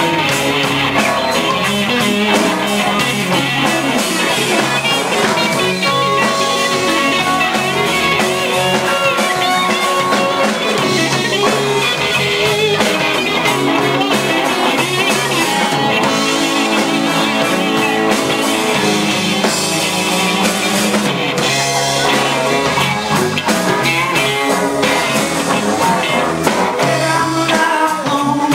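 A live band jamming, with several electric guitars over bass and a drum kit playing loud, continuous rock.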